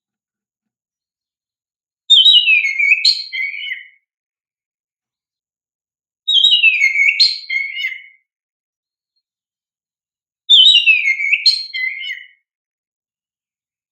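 Oriental magpie-robin (kacer) singing the same whistled phrase three times, each about two seconds long and sweeping down from high to lower pitch, with dead silence between the repeats, as in a looped lure recording.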